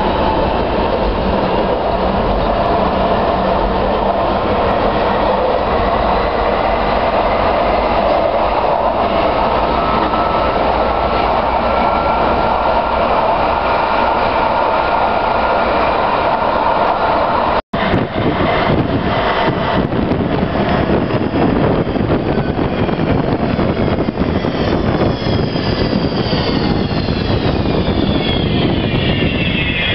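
Manchester tram 2000's AC traction motors and old-style inverters heard from the cab while running at speed: steady electric tones over wheel-on-rail noise. After a sudden break about halfway, a whine of several tones falls steadily in pitch over the last few seconds as the tram slows alongside a platform.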